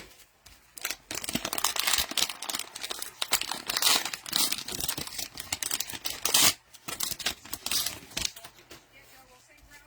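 Cellophane wrapper of a trading-card pack crinkling and tearing as it is ripped open, dense crackling for about five seconds, then a few scattered crackles.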